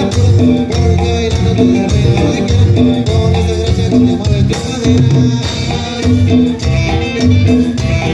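Live cumbia band playing an instrumental passage on electric guitars, bass, keyboard and drum kit, with a steady repeating dance beat.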